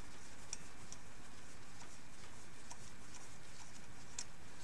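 A few faint, scattered light ticks of hand tools on the water pump pulley bolts, over a steady hiss.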